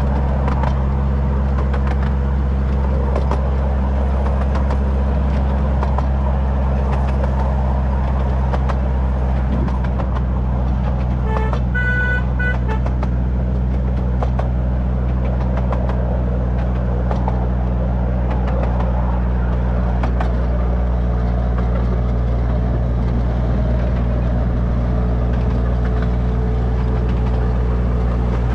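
Miniature railway locomotive's engine running at a steady drone, with light clicks from the train, and a brief toot, broken once, about twelve seconds in.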